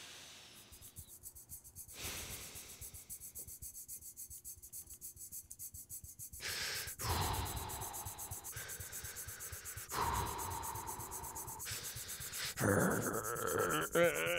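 Cartoon sound effect of hands rubbing a magic lamp in quick, even strokes, about four or five a second, growing louder about six seconds in. Near the end a strained, wavering voice joins the rubbing.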